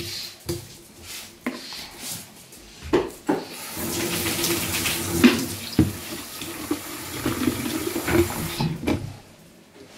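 Kitchen tap running into a stainless-steel sink as slippery soap and salt are rinsed off under it, with a few knocks and splashes. The water comes on about a third of the way in and stops near the end.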